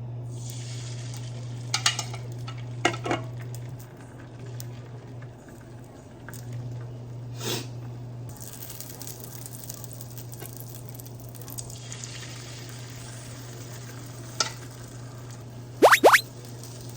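Food sizzling in a frying pan, with a cooking utensil knocking and clicking against the pan now and then, a double knock near the end, over a steady low hum.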